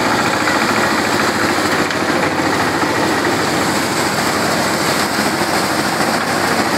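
Motorised drum thresher running steadily as bundles of green crop stalks are fed by hand into its spinning drum: a loud, constant mechanical noise.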